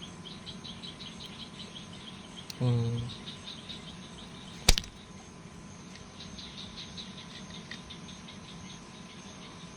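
Crickets chirping steadily in the background, a fast run of high pulses that fades in and out. A short vocal sound comes about three seconds in, and there is a single sharp click near the middle.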